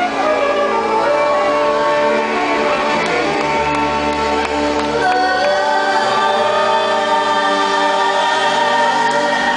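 Live band music with a woman singing lead into a microphone, holding long notes over the band.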